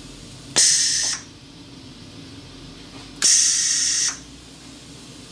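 Pneumatic collet closer cycling twice: each time a sharp click from the air solenoid valve, then a burst of hissing air as the air cylinder swings the closer lever, the first lasting about half a second and the second nearly a second.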